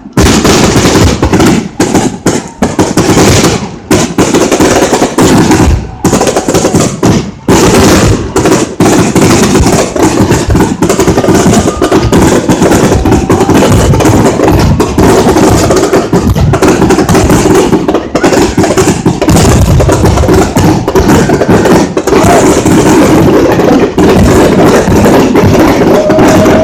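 Fireworks going off in a dense, unbroken barrage of rapid cracks and bangs, loud throughout.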